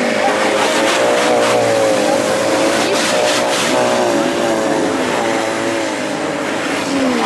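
Off-road 4x4's engine running at high, steady revs as it ploughs through a water crossing, with water rushing and splashing around the wheels. The engine note drops near the end.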